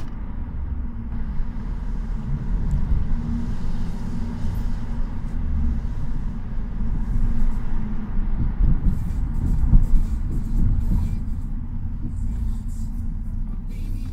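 Opel Vectra on the move, heard from inside the cabin: a steady low rumble of engine and road noise.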